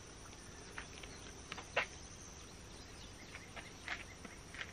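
A few faint clicks and a sharper knock under two seconds in, from the Arca-Swiss quick-release clamp being loosened and the rifle's dovetail plate worked free of it. Under them runs a steady high drone of insects.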